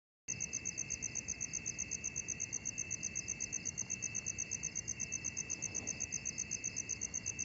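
Night insects, crickets, chirping: a fast, even pulsing high chirp at about nine pulses a second over a steady lower trill. It begins abruptly just after the start.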